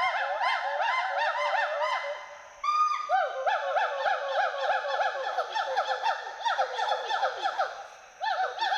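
Western hoolock gibbons whooping: a rapid series of rising-and-falling hoots, about four or five a second. It fades out about two seconds in, starts again with a longer held note and runs on, with a short lull near the end.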